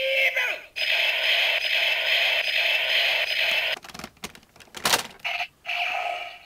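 Electronic sound effects from a Gokai Saber toy sword, a steady electronic sound lasting about three seconds. Then plastic clicks as a Ranger Key is pushed into a Gokai Galleon Buster toy cannon, which answers with two short electronic sounds.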